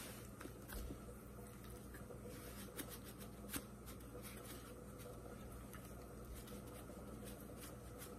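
Seasoning shaken from a spice shaker onto raw chicken wings in a plastic container: faint pattering with a few soft clicks, over a low steady hum.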